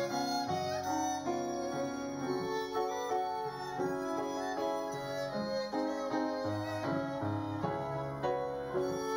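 Two violins playing a melody together over a piano accompaniment, a live performance of a classical-style piece.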